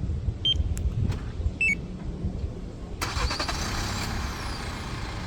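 Car engine remote-started by an aftermarket Magicar Gold 8 remote starter: a couple of short electronic beeps, then about three seconds in the engine catches and keeps running.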